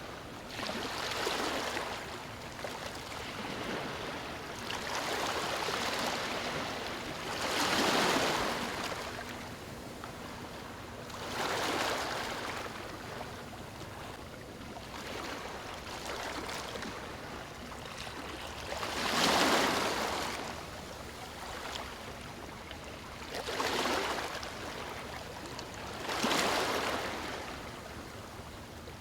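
Sea waves breaking on a stony shore: a steady wash of water, with about seven louder surges that swell and fade at uneven gaps of a few seconds. The strongest comes about two-thirds of the way through.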